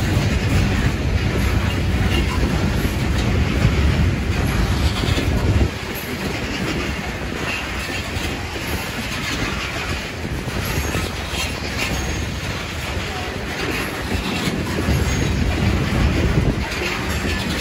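Open-top aggregate cars of a freight rock train rolling past, their steel wheels clicking over the rail joints. A heavy low rumble drops off suddenly about six seconds in.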